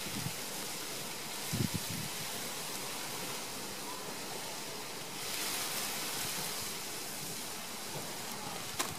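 Steady outdoor wind hiss, with a brief low buffet on the microphone about one and a half seconds in and a louder stretch of hiss a little past the middle.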